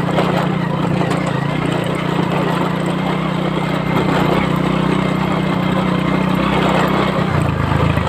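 Small step-through motorcycle engine running steadily under way. Its note drops lower about seven seconds in.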